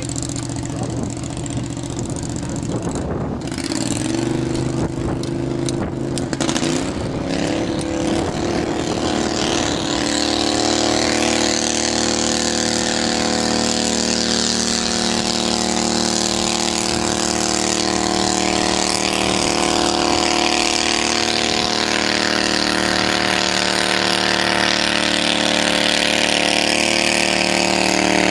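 Quarter-scale pulling tractor's engine revving up over several seconds, then holding a steady high-rpm note under load as it drags a weight-transfer sled down the track on a full pull.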